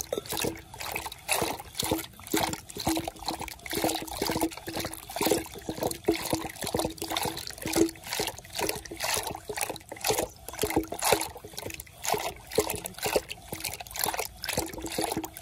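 Curd and water slopping and splashing in a clay pot as a wooden churning stick (kavvam) is twirled back and forth in a quick, even rhythm, churning buttermilk to separate out butter.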